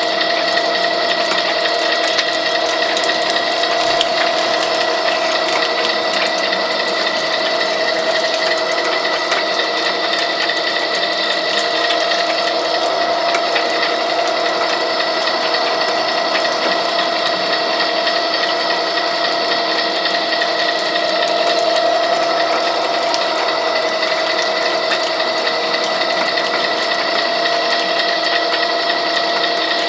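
Wheeler-Rex 6590 pipe threading machine, a gear-driven machine, running steadily: an even whine of several fixed tones with fine, fast clicking.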